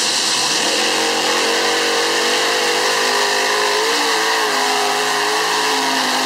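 Pulling tractor's twin turbocharged V12 diesel engines, taken from a T55 tank, running hard under full load during a pull. A loud, steady engine note whose pitch wavers slightly.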